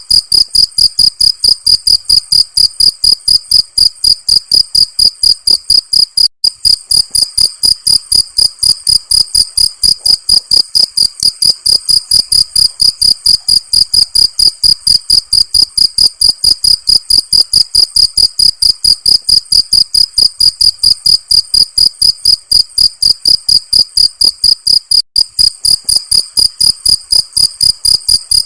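Crickets chirping in a fast, even rhythm of about five high-pitched chirps a second, with two very brief breaks.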